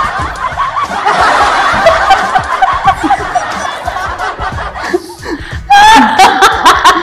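A crowd of people laughing and shouting together; about six seconds in, one louder voice close by laughs and calls out over them.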